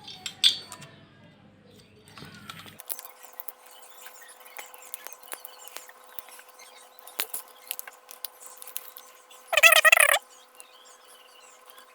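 Small scratching and clicking sounds of hands and a tool working the plastic cover off a UPS transformer's fuse wire, over a faint steady hum. About ten seconds in, a short, loud warbling squeak cuts through.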